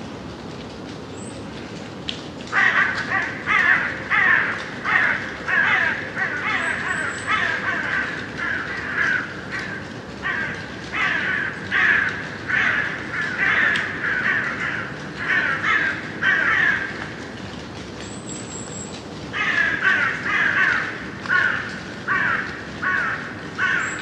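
Crows cawing in a long run of calls, about two a second, pausing for a couple of seconds near the end before starting again, over the steady hiss of gentle rain. A small bird gives a few brief high chirps.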